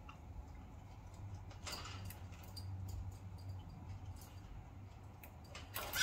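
Budgies shifting about in their cage, making faint small clicks and scratches, with a brief louder rustle near the end.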